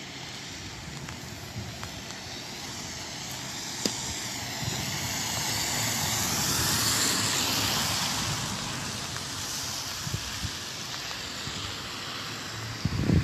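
Steady hiss of rain on wet pavement, with a car's tyres hissing on the wet road as it passes, swelling to a peak about halfway through and fading again.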